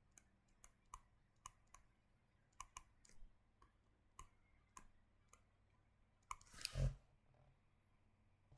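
Faint, irregular clicks at a computer, about one or two a second, with a brief louder rustle and bump about six and a half seconds in.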